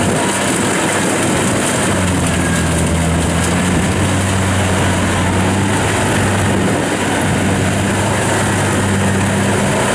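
Kubota DC70 Plus combine harvester's diesel engine running steadily under load while the machine cuts and threshes lodged rice: a constant engine drone over a dense rush of machinery noise.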